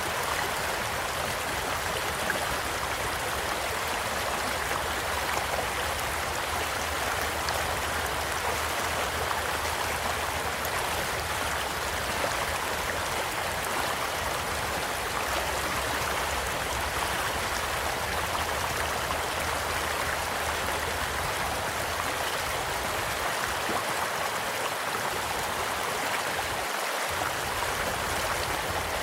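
Small stream flowing steadily with an even rushing and babbling of water, and now and then a faint crackle or pop from a campfire.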